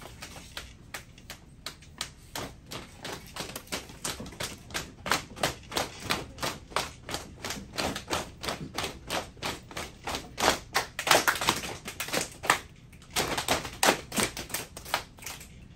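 A group of children doing body percussion together, patting and clapping hands in an even beat of about three to four strokes a second. The beat grows louder, breaks off briefly a little before the end, then starts again.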